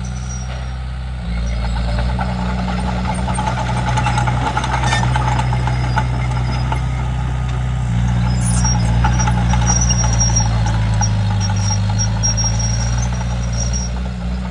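Komatsu D31P crawler bulldozer's diesel engine running under load, growing louder about a second in, its pitch sagging briefly near the end. A faint high squeal comes and goes in the second half.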